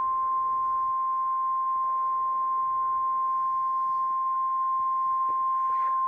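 NOAA Weather Radio's 1050 Hz warning alarm tone: one steady, unbroken tone that signals an incoming warning broadcast, here a severe thunderstorm warning.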